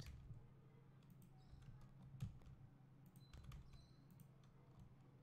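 Faint, scattered computer mouse clicks and key taps, the loudest about two seconds in, over a low steady hum.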